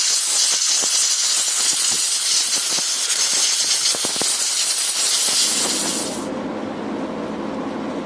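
Compressed air hissing steadily from a blow gun aimed into a pocket knife's body, cutting off about six seconds in, after which a quieter, lower steady noise carries on.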